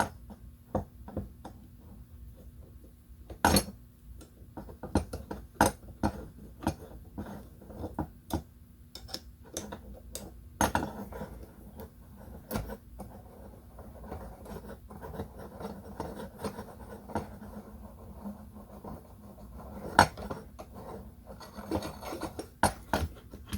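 Irregular clinks, clicks and taps of small metal parts and hand tools being handled while a screw is started by hand into a camera-mount arm, with a couple of sharper knocks.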